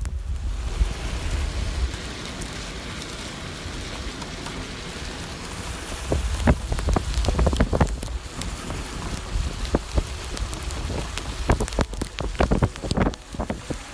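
Rain falling on a moving car on a wet road: a steady hiss over a low road rumble, with sharp raindrop hits close by that come thicker from about six seconds in.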